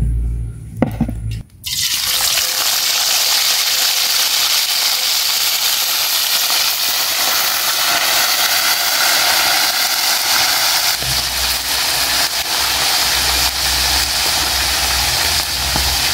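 Spice-braised chicken pieces going into hot cooking oil, setting off a loud, steady sizzle that starts suddenly about a second and a half in.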